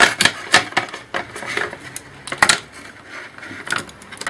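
Clicks and light clatter of plastic and metal laptop parts being handled and pulled apart, with sharp knocks at irregular intervals, the loudest about two and a half seconds in.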